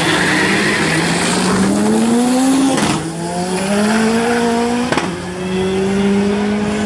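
Pro-Street drag car's engine at full throttle accelerating down the strip, its pitch climbing and dropping sharply twice, about three seconds and five seconds in, as it shifts gears, then running on at a steadier pitch.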